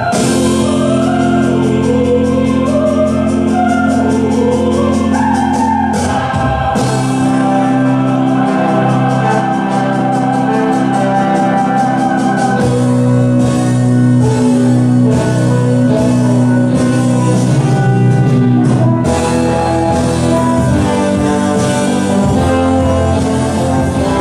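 Background music: sustained chords with singing voices that glide in pitch early on, and a steady beat through the middle stretch.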